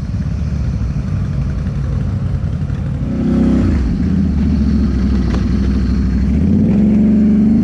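ATV engine running: a low, uneven rumble at first, then about three seconds in it steps up to a louder, steady higher note under throttle, rising a little near the end.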